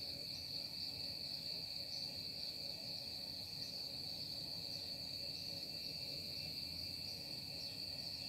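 Steady high-pitched insect trill with a faint low hum beneath.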